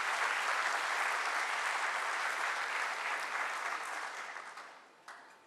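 Audience applauding, steady at first, then fading away about four to five seconds in.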